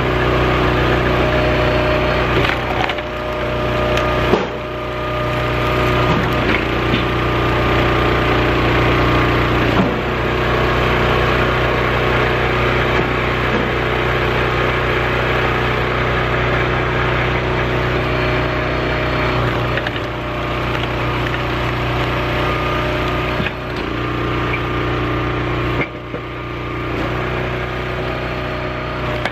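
Small gas engine of a hydraulic log splitter with a 28 gpm pump running steadily while the wedge splits log chunks, the wood cracking and splintering, with an occasional sharp crack.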